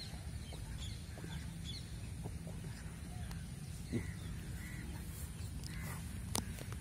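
Outdoor ambience of birds calling in short, scattered chirps over a low steady rumble, with two sharp clicks about four and six seconds in.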